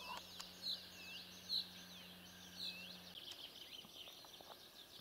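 Small songbirds singing in the morning, one bird repeating a short bright phrase about once a second amid other swooping calls.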